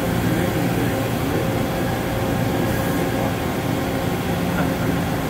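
Steady hum of a five-axis CNC machining centre running, with several steady tones over a constant noise.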